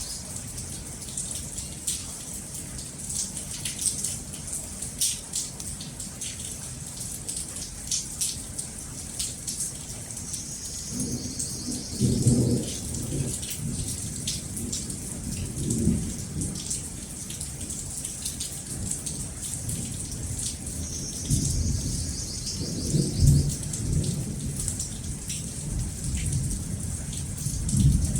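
Steady rain falling, with a constant hiss full of small drop taps, and thunder rumbling low several times: a first roll about eleven seconds in, another shortly after, a longer one past the middle and a last one at the end.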